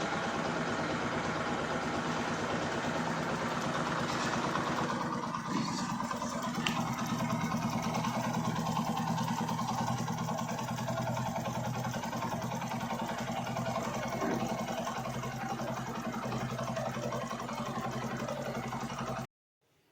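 Bajaj Platina H-Gear motorcycle's single-cylinder engine idling steadily just after a start, running on freshly changed oil. The upper hiss eases about five seconds in, and the sound cuts off suddenly near the end.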